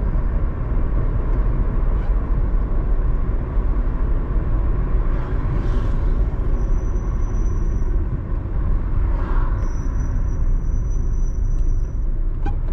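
Car driving along a road: a steady low rumble of engine and tyre noise, with two brief swells of rushing noise about five and nine seconds in.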